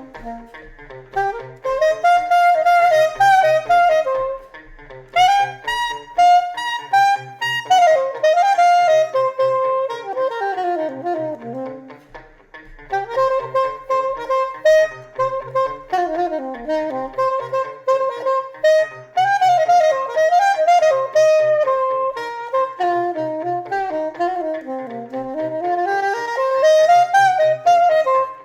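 Saxophone improvising short, sharply tongued phrases on the D blues scale over a funk backing groove with an evenly repeating low bass pulse.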